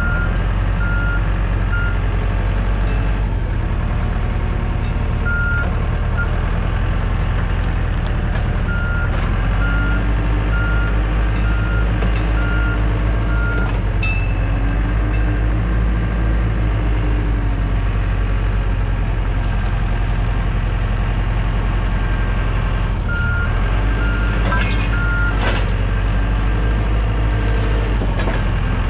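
Heavy equipment engine running steadily, with a backup alarm beeping in short runs several times as the machine moves in reverse, and a few metal knocks.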